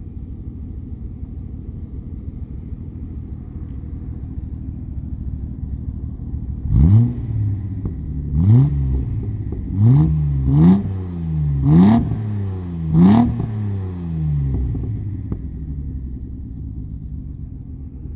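Datsun 280Z's fuel-injected L28 straight-six idling through glasspack mufflers, then revved in six short throttle blips near the middle, each rising sharply and falling back to idle.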